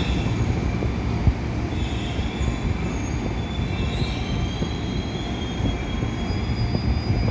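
Train moving slowly with a steady low rumble from wheels and running gear. High, drawn-out wheel squeal wavers in pitch through the middle.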